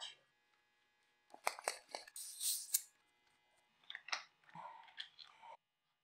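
Small clicks and rattles of a dropper seatpost's saddle clamp hardware being handled and fitted, in two short spells with brief rustling noises between them.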